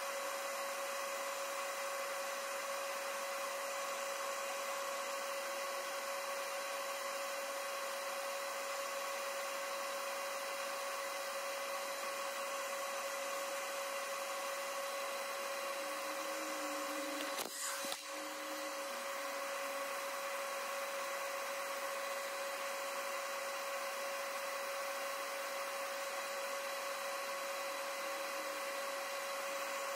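A small motor running steadily with a constant whine over a steady hiss, broken once by a brief click a little past halfway.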